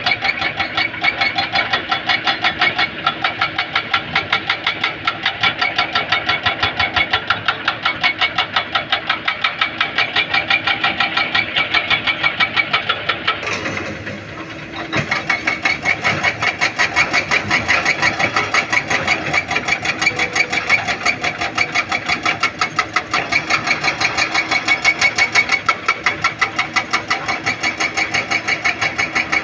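Diesel engine of a heavy construction machine running close by with a fast, even pulsing beat. The sound drops briefly about halfway through, then picks up again.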